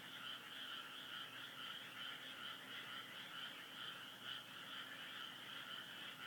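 A steady chorus of small calling animals: a dense, fast, pulsing trill in two high bands that runs on unbroken.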